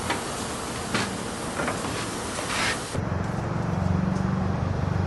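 Work around a small narrow-gauge steam locomotive: a few metallic knocks and a short burst of hiss, then, after a cut, a low steady rumble with a fast, even pulse.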